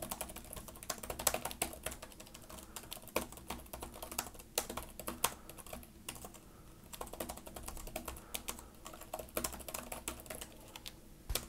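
Fast touch-typing on the MSI Stealth 15M laptop's backlit keyboard: a quick, irregular stream of light key clicks, with a short lull about halfway through. The audio is boosted by 20 dB, so the keys sound close and clear.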